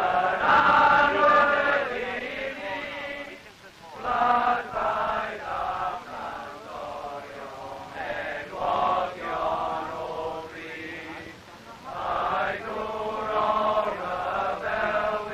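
A group of male voices chanting a song together in unison, in phrases with short breaks between them.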